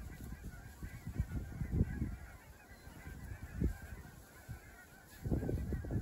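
Wind buffeting the microphone in uneven gusts, strongest near the start and again near the end, over a distant flock of geese honking faintly and continuously.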